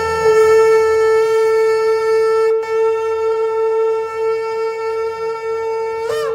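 Shofar (ram's horn) blown in one long, steady held note. Near the end the note cracks upward and wavers, breaking into a higher pitch.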